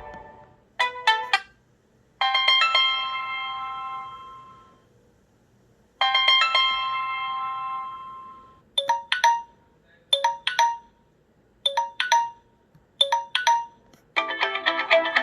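Samsung Galaxy J7 Star ringtones and alert tones previewed one after another. A short chime is followed by two bell-like chords that each ring out and fade over a few seconds, then a quick two-note chime repeats about every second and a half; near the end a new melodic ringtone begins.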